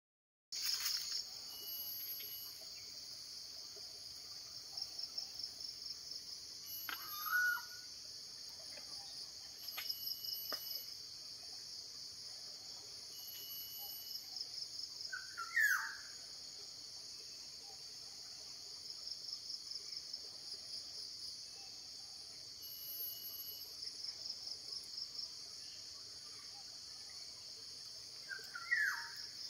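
A steady, high-pitched insect chorus that swells into pulsing trills every few seconds. A bird gives a short call three times: about a quarter of the way in, halfway through, and near the end.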